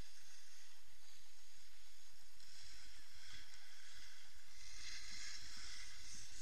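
Wind rushing over an action camera's microphone with scraping of packed snow underfoot as the wearer slides down a groomed ski slope, with low knocks and rumbles that thicken in the last couple of seconds as speed picks up.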